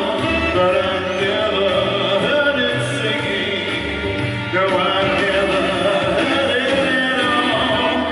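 Live band music with a singing voice over it.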